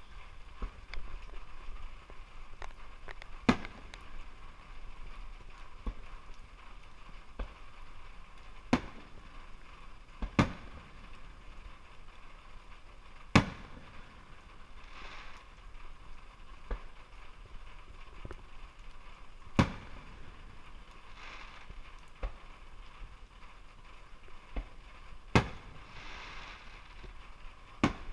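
Fireworks going off: sharp bangs every few seconds, some much louder than others, with fainter pops between and a few short spells of hissing crackle.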